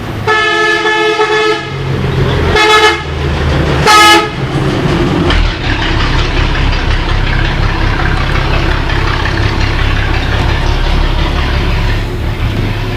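A vehicle horn sounds three times: one long blast of about a second and a half, then two short toots, over a steady low rumble of vehicle noise that carries on after the horn stops.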